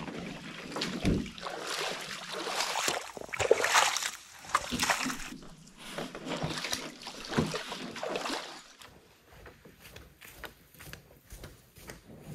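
Shallow water splashing and sloshing as lightweight solo canoes are waded and lifted out of a pond, with scattered knocks from the hulls and paddles. About nine seconds in, this gives way to quieter, scattered footfalls and rustles on a forest trail.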